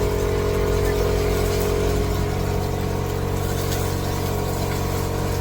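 Meat searing in hot oil in a stainless steel pot, a faint sizzle with small scattered pops over a steady droning hum from the cooking setup running at full heat.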